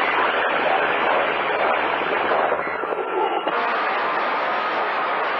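CB radio receiver tuned to channel 28, hissing with steady static, with faint, garbled traces of distant skip signals under the noise.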